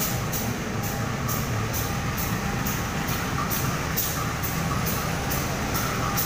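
CC 201 diesel-electric locomotive's GE V8 diesel engine running steadily as the locomotive rolls slowly into the station, with short sharp high ticks about three times a second over the rumble.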